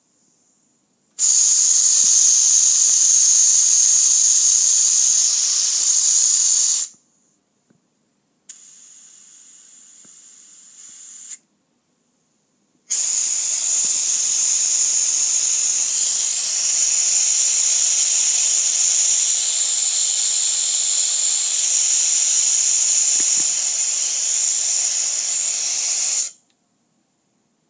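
Dental high-volume evacuator (HVE) suction pulling air through its tip: a loud, steady, high-pitched hiss. It starts about a second in and stops near seven seconds, comes back much quieter for about three seconds, then returns loud at about thirteen seconds and cuts off near twenty-six seconds.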